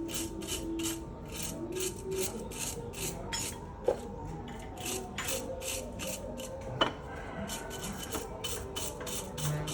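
Rhythmic hand scraping or rubbing strokes on a metal engine part, about three strokes a second, with two sharp clicks partway through.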